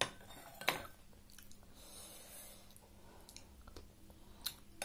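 Eating soup with a spoon: the spoon clinks against the glass bowl twice in the first second, followed by a soft sip and quiet chewing, with a few small ticks near the end.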